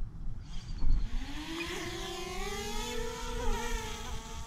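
DJI Mavic Air quadcopter taking off, its propellers spinning up into a buzzing whine. After a knock about a second in, the whine rises in pitch, then holds steady as the drone flies.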